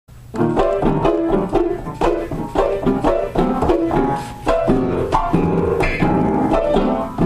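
Piano music: loud chords struck in quick succession, about two or three a second.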